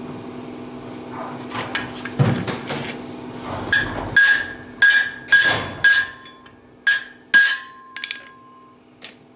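Hand hammer striking steel on a blacksmith's anvil: about seven sharp blows in quick succession, each leaving a clear metallic ring, preceded by a few light clinks of handling the work.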